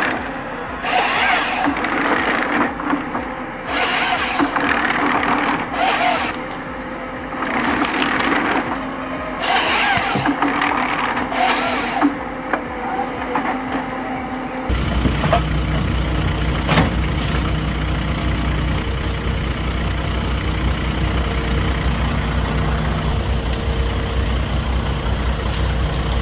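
Machine logging of timber: irregular bursts of wood cracking and hissing for the first fifteen seconds or so. Then, after an abrupt change, a heavy diesel engine running steadily.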